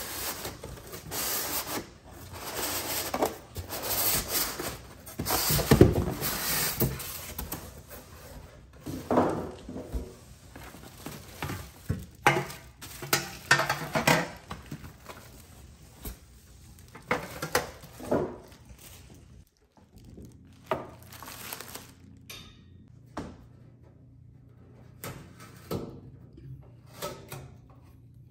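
Unboxing and handling noise: a foam packing insert, cardboard and plastic-wrapped metal oven accessories being lifted out of a box, with rustling, crinkling plastic and scraping, busiest and loudest in the first half. Later come softer rubs and light taps as protective film is peeled off the oven's door handle.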